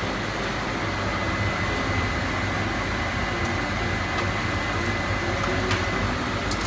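Oven fan running with a steady whir, a low hum and a faint thin high tone, with a few light clicks.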